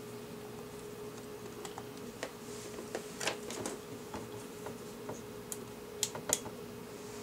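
Scattered light clicks and taps of small parts or tools being handled on a workbench, the sharpest few around three and six seconds in, over a steady faint hum.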